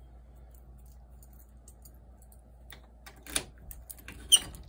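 A few short sharp clicks and knocks, the loudest near the end, over a faint steady low hum.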